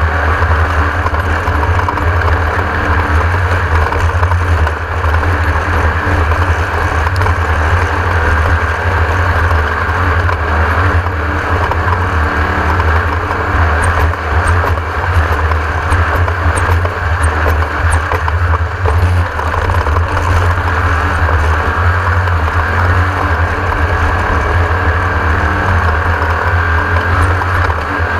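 Class 1600 off-road race buggy driving at speed: its air-cooled VW flat-four engine runs loud and steady with a heavy low rumble and rough road noise.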